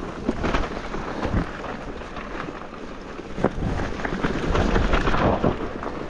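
Electric mountain bike ridden down a rocky, dry trail: tyres crunching over rocks and loose dirt, with frequent knocks and rattles from the bike under a wind rumble on the microphone. It is loudest between about four and five and a half seconds in.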